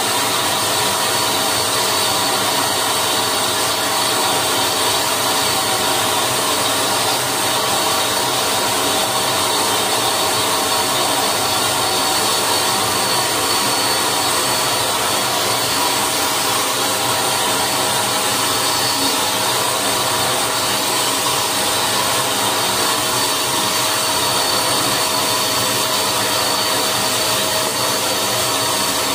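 Buildskill BPS1100 650 W HVLP electric paint sprayer running steadily while spraying paint: a constant rush of air with a fixed whine from its turbine blower motor.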